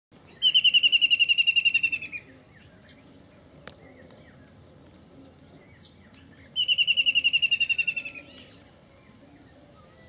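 White-throated kingfisher giving its rapid trilling call twice, each trill about a second and a half of fast, even notes that tail off at the end. A steady thin high tone runs behind.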